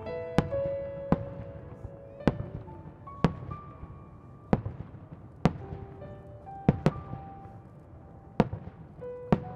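Aerial firework shells bursting, about ten sharp bangs at roughly one-second intervals, two of them close together just before seven seconds in. Music with long held notes plays underneath.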